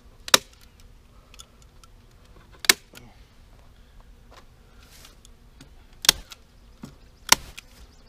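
Hand-powered heavy-duty staple gun firing staples into wood, four sharp snaps a couple of seconds apart with small clicks of handling between, as window screen is stapled over a beehive entrance. A faint steady hum of bees from the crowded hive lies beneath.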